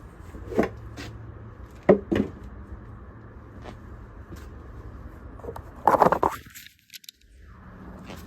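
A few sharp clicks and knocks of tools and parts being handled, with a louder cluster of scraping knocks about six seconds in, over a low steady hum.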